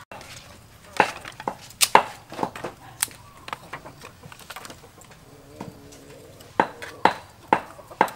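Split firewood sticks knocking and clattering against each other and the metal grate of a drum stove as they are stacked for a fire: sharp knocks in a cluster one to three seconds in and another near the end.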